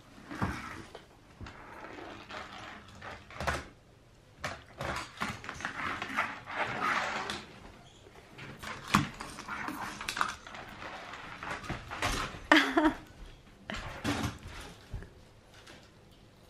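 Plastic toy knocking and sliding on a wooden floor in a series of scattered knocks and clicks, with a toddler's short vocal sounds, one about twelve seconds in.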